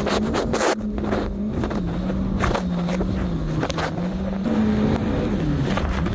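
Jet ski engine running at speed, its steady drone wavering slightly in pitch and dipping briefly near the end, over the rush of water and wind, with several short splashes.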